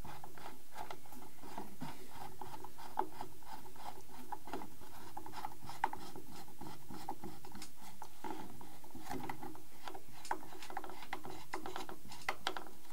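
Small hex driver turning the single bolt that holds a model plane's wheel spat to the axle: a run of small irregular clicks and scrapes of metal on metal as the bolt is worked in.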